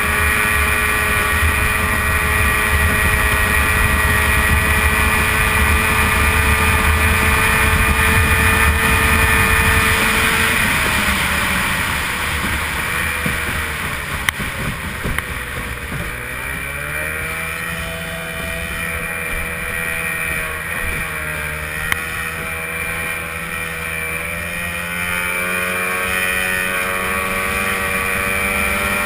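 A-Stock hydroplane's racing outboard engine running flat out, heard from on board with a steady high tone. About eleven seconds in it eases off and the pitch sags, then it picks back up. It sags briefly again later and climbs back near the end, with a couple of short knocks along the way.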